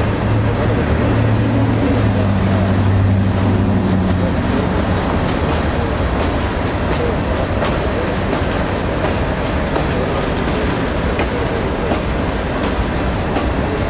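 Empty covered hopper cars of a grain train rolling past at close range, wheels clacking over the rail joints in a steady rattle. A low hum underneath fades out about four seconds in.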